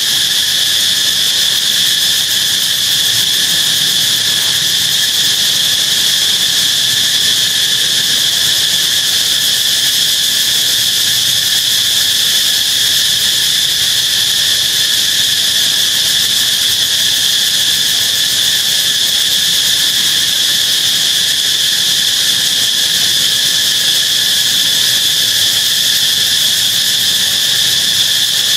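Dense insect chorus: a steady, high-pitched drone with a weaker, lower band beneath it, holding without a break.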